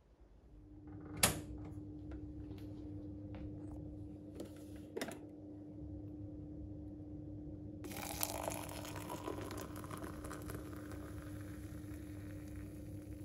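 A sharp click about a second in and a couple of small knocks, over a steady low hum. From about eight seconds in, hot water is poured from a kettle into a mug with a steady hiss.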